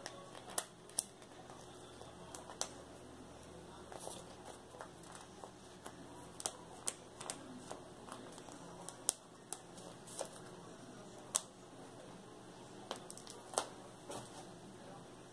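A paper sheet of craft doll eyes being handled: faint rustling of paper with scattered, irregular sharp clicks.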